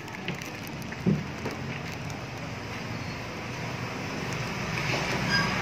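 Street traffic noise, a steady rush of passing vehicles that swells toward the end, with a short thump about a second in.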